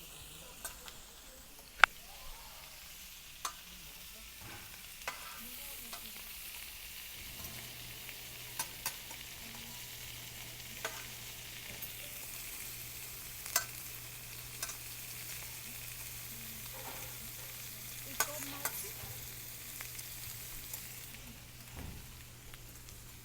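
Pork belly frying on a large iron griddle: a steady sizzle with scattered sharp clicks and pops, the loudest about two seconds in. A low steady hum comes in about seven seconds in.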